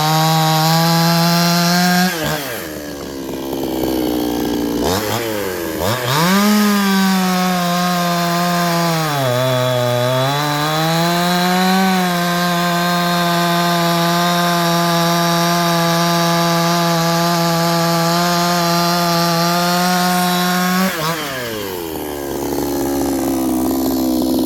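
Ported 46.2 cc Chinese two-stroke chainsaw running at full throttle. It drops off about two seconds in and revs back up, then dips in pitch around the middle as it is loaded in the cut, recovers, and winds down near the end as the throttle is released.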